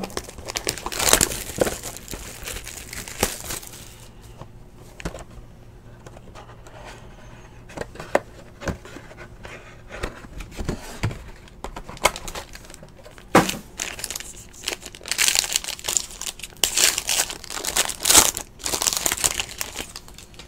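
Wrapper crinkling and tearing and cardboard rustling as a box of Panini Limited basketball cards is opened and the cards are taken out. It comes in bursts, a cluster about a second in, scattered clicks through the middle, and denser crinkling in the last five seconds.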